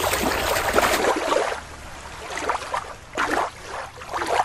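Shallow water splashing as a hand swishes a plastic toy through it. About a second in, this gives way to quieter, uneven water sounds.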